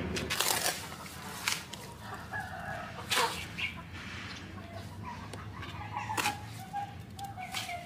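Chickens clucking, and a rooster crowing in one long call through the second half. Over them a metal trowel scrapes and knocks against a metal basin as wet cement mortar is scooped and packed into a plastic mould, with several sharp clinks that are the loudest sounds.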